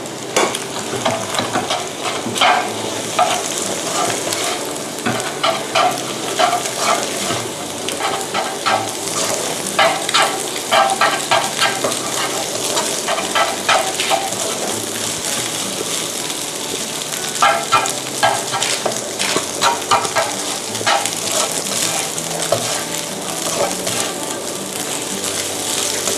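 Cooked rice and scrambled egg frying in butter in a nonstick pan, a steady sizzle. Over it, a slotted spatula scrapes and taps against the pan in runs of quick strokes as the rice is broken up and stirred in.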